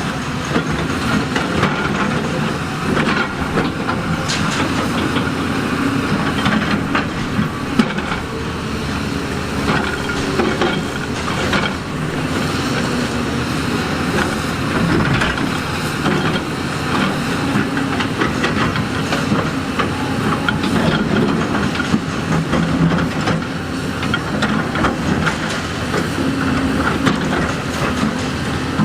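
A heavy tracked earthmoving machine's diesel engine running steadily, with many short knocks and clatter of rock and steel throughout.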